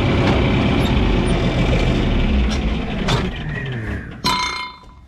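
A motor running loudly and steadily, then winding down in pitch about three seconds in. A brief high squeal follows about four seconds in.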